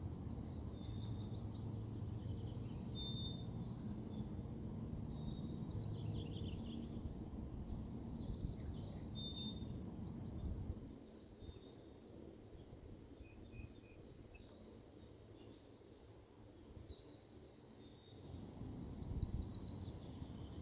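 A songbird singing short, high, trilling phrases every couple of seconds, over a low background rumble that fades about halfway through and returns near the end.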